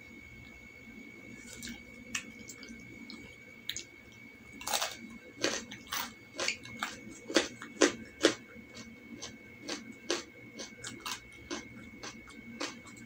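Close-miked chewing of a soft rolled egg omelette: wet mouth smacks and clicks come irregularly from about four and a half seconds in. They are loudest a little past the middle and thin out near the end.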